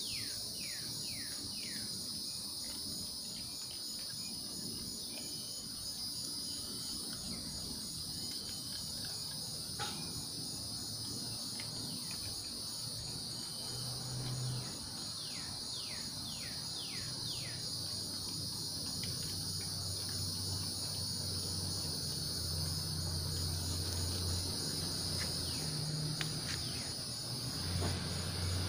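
Steady chorus of insects in the evening, a continuous high-pitched trilling that runs unbroken. Runs of quick falling chirps come near the start and again about halfway through, and a low hum builds up in the second half.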